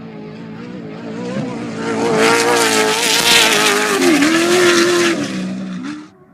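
Off-road race vehicle passing at speed: its engine note builds to its loudest in the middle with a rush of tyres over dirt, the pitch drops as it goes by, and the sound cuts off suddenly near the end.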